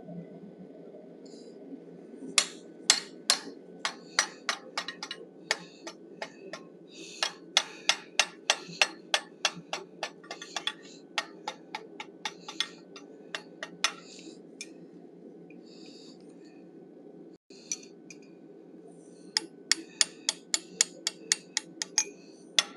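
Hand hammer striking a chisel held against a hot steel bison head in a vise, chiselling the ears apart from the horn: quick, sharp metallic blows about three a second, a pause of several seconds, then another quick run near the end. A steady low hum sits underneath.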